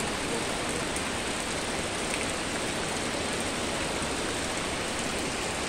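Rain falling steadily on a lawn and on palms and broad-leaved garden plants: an even, unbroken hiss.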